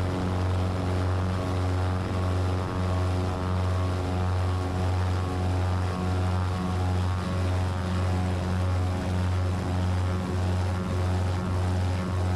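Twin-engine Cessna 337 Turbo Skymaster's front and rear propeller engines running at takeoff power during the takeoff roll, heard from inside the cockpit. It is a steady low drone with a slow, regular throb in loudness about once a second.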